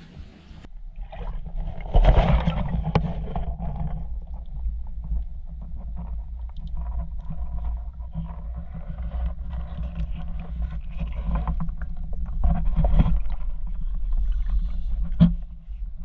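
Muffled sloshing and rushing of river water around a camera held in the water, a low rumble that begins abruptly a moment in, with louder surges about two seconds in and again near the end.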